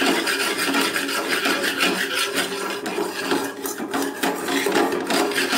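A small wire whisk scraping round the bottom of a metal pot, stirring bubbling caramel that has just turned brown: a continuous, rapid rasping.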